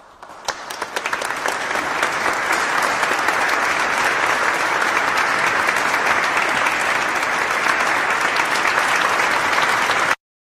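Crowd applauding: scattered claps build over the first two seconds into steady, dense applause, which cuts off abruptly near the end.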